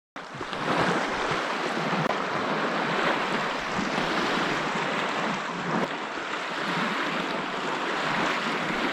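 Lake waves washing and breaking in a strong wind, a steady rushing noise with no pauses.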